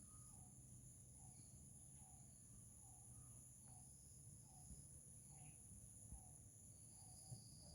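Faint outdoor ambience: a bird repeating one short, low note a little more than once a second, over the steady high-pitched drone of crickets or other insects.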